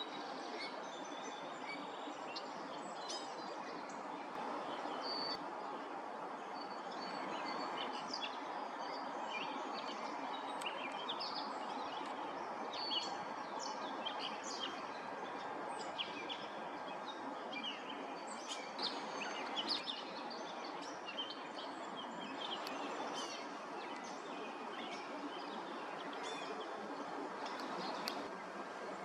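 Birds chirping: many short, high calls scattered throughout, over a steady background hiss of outdoor noise.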